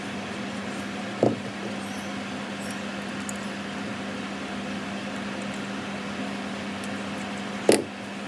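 Steady low hum with a constant tone, broken by two sharp knocks: one about a second in, and near the end a screwdriver set down on the stainless steel workbench.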